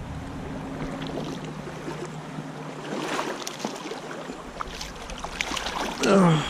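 Hooked rainbow trout splashing and thrashing at the surface as it is played toward the net, over the steady rush of stream water. Near the end, a short, loud exclamation falling in pitch.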